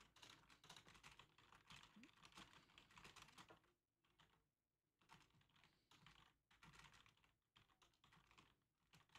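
Faint computer keyboard typing: runs of quick keystrokes, with a pause of about two seconds near the middle before the typing resumes.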